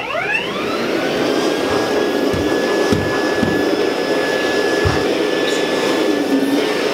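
Canister vacuum cleaner switched on, its motor whining up to speed over about a second, then running steadily while the hose tool is worked along a baseboard, with a few dull knocks.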